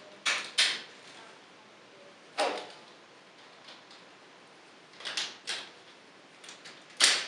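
Hard plastic toy parts being fitted and pegged together by hand: about six sharp clicks and clacks, the loudest near the end.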